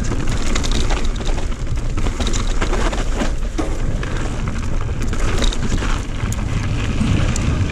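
Mountain bike descending at speed with the microphone on the rider or bike: a steady low rumble of tyres over dirt and gravel, broken by frequent short knocks and rattles as the bike hits bumps.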